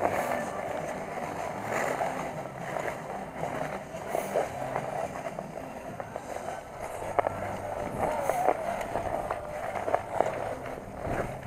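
Ice skate blades gliding and scraping over rink ice: a steady scraping hiss broken by frequent small clicks and scuffs.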